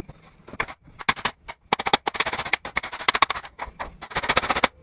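Hand hammer rapidly tapping on a metal part clamped in a bench vise: a quick, irregular run of sharp metal-on-metal strikes starting about a second in.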